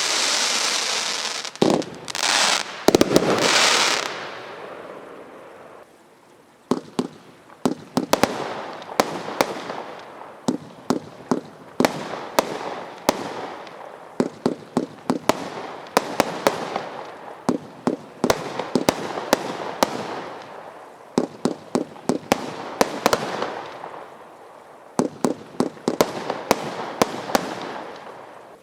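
Consumer firework barrage cakes going off: loud hissing and crackling bursts for the first few seconds, then, after a brief lull, rapid volleys of sharp bangs with crackle between them.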